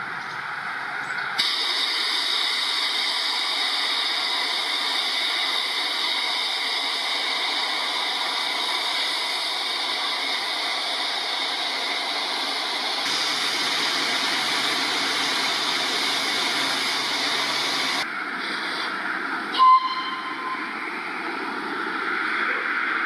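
Loud, steady hiss of steam escaping from A1 Pacific steam locomotive 60163 Tornado, from its cylinder drain cocks and from above the boiler, standing at the platform. The hiss cuts off suddenly about eighteen seconds in. A short, sharp blast with a whistle tone follows a couple of seconds later.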